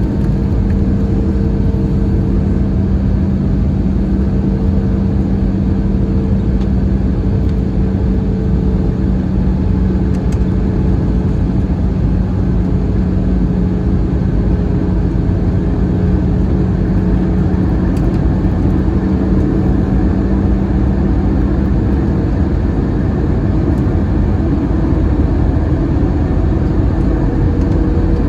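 Cabin noise of an Airbus A321 in flight: a steady rush of airflow with a steady low engine hum, which fades out about three-quarters of the way through.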